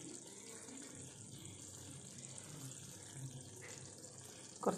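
Faint steady hiss of chicken roast gravy simmering in an aluminium kadai on the stove.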